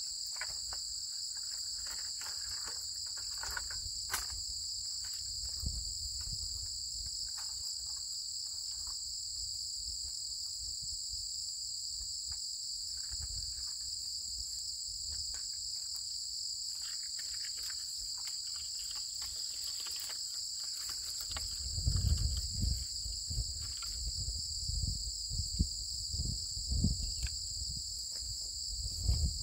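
Steady chorus of insects shrilling in two unbroken high-pitched bands. About three-quarters of the way through, a run of low thumps and rumbles joins in.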